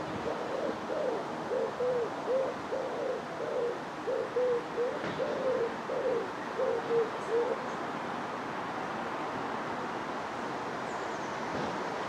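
A pigeon cooing: a run of short, low coos in loose groups that stops about seven and a half seconds in.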